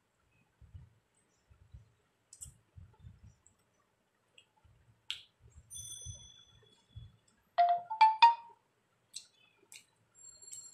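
Faint mouth and hand sounds of eating rice and fish by hand, then about two-thirds of the way in a loud, short electronic chime of three notes, each higher than the last.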